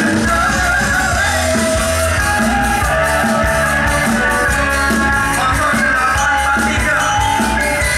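Live band music: a voice singing over bass guitar and a shaken tambourine, steady and loud throughout.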